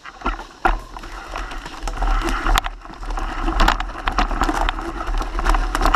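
Mountain bike ridden fast over a dirt trail strewn with leaves and sticks: tyres crunching through the litter and the bike rattling over bumps in many quick clicks and knocks, over a steady low rumble.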